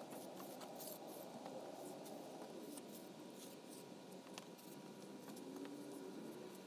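Sidewalk chalk scraping on asphalt as circles are drawn, faint, with many small clicks.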